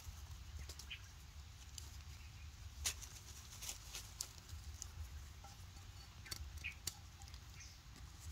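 Faint, scattered light clicks and rustles in dry leaf litter over a low steady rumble, with a short high chirp twice, about a second in and again near the end.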